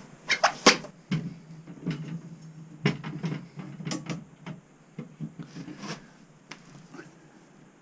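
Irregular knocks and clunks of large prismatic LiFePO4 battery cells being handled and set into an aluminium extrusion frame. The knocks come thickest in the first second and thin out after about six seconds.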